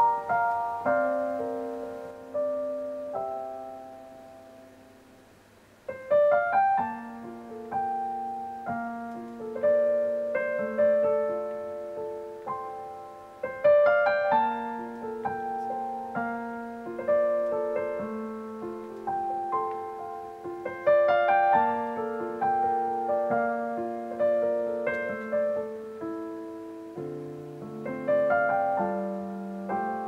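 Solo grand piano music: a slow melody over held chords, each note ringing and dying away. A phrase fades out about four seconds in, and a new one starts about six seconds in.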